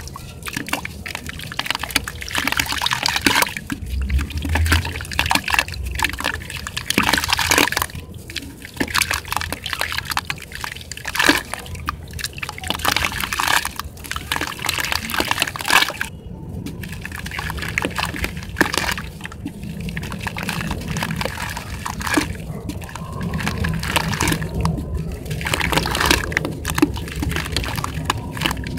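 Hands squeezing and crumbling soaked sand-cement chunks in a bucket of water: irregular squelching and sloshing, with water splashing and dribbling back into the bucket.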